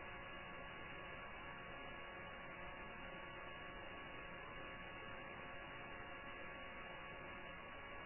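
Steady, faint electrical hum with hiss, unchanging throughout, with no knocks or other events.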